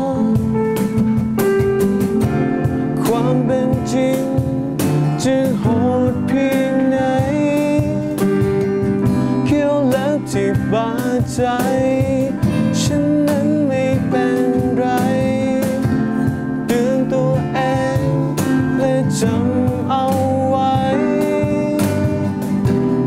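Live acoustic band performance of an alternative rock song: steel-string acoustic guitar, keyboard and cajón, with a sung vocal line over them.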